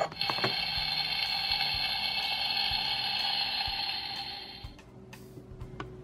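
Toy kitchen stove's electronic sizzling sound effect played through the playset's small speaker: a steady hiss that fades out about four and a half seconds in. A couple of light plastic clicks near the start.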